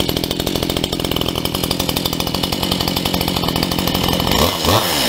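Stihl MS211C chainsaw's 35 cc two-stroke engine idling steadily, freshly started for the first time. Near the end it revs up briefly and drops back.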